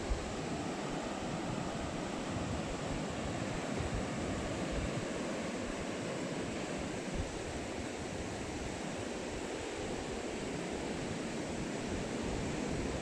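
Ocean surf breaking on a sandy, rocky beach, a steady wash of waves, with wind buffeting the microphone in uneven low gusts.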